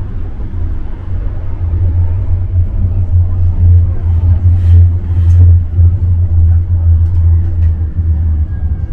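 Tram running on its rails, heard from inside the car: a heavy low rumble that swells about halfway through, with a few sharp clicks and rattles.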